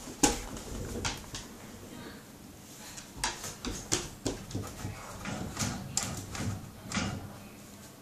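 A dog tugging at a string tied to a wooden banister post, growling low, with a series of sharp knocks and scuffles as it pulls.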